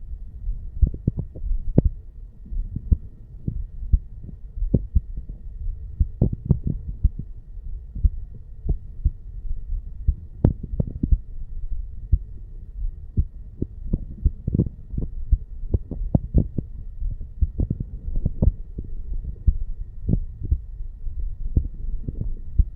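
A man's heartbeat picked up over the mitral (bicuspid) valve area of the chest: regular, short, low thuds repeating steadily.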